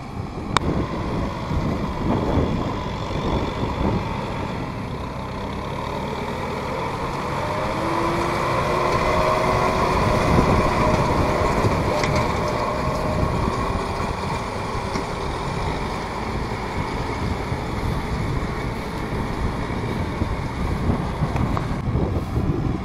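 Kubota M6040SU tractor's diesel engine running steadily under load while driving a round straw baler, loudest as it passes close about ten seconds in, then fading a little as it pulls away.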